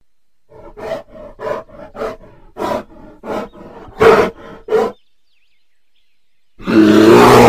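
Brown bear vocalising: a quick series of short grunts, then, after a pause of about a second and a half, one long, loud roar near the end.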